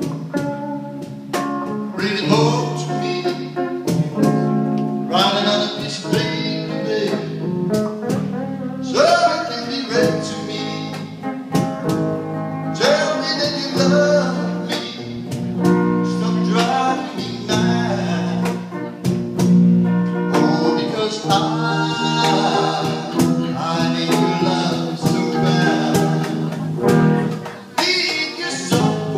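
Live band playing a slow song: a singer's voice over guitar and other accompaniment.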